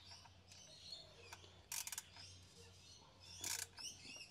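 Two short bursts of rapid ratchet clicking, about two seconds apart, as a 7 mm socket is turned on the bolts of a crank angle sensor. Birds chirp faintly in the background.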